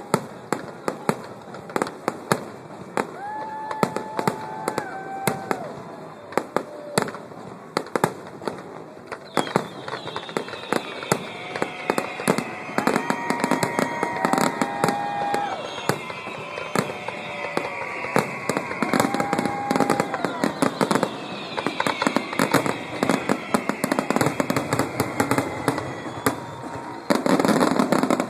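Fireworks display: rapid sharp bangs and crackles, with falling whistles from about a third of the way in and a denser, louder stretch of bursts near the end.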